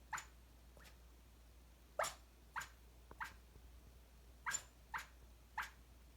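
A sleeping small dog's snoring breaths, heard as faint short clicky snuffles, mostly in pairs about half a second apart, with a pause of a second or more between pairs.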